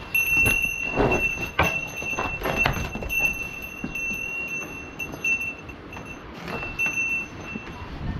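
Small metal bells on livestock ringing irregularly as the animals move about, the jangle stopping and starting, with scattered knocks.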